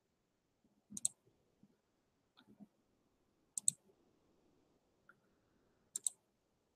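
Computer mouse clicking: three sharp double clicks, roughly two and a half seconds apart, with a few faint low knocks between.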